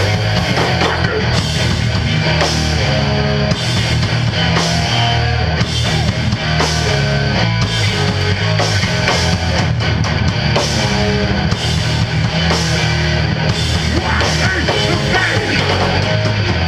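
Hardcore punk band playing live and loud: distorted electric guitar over a heavy low end, with drums and cymbals crashing over and over.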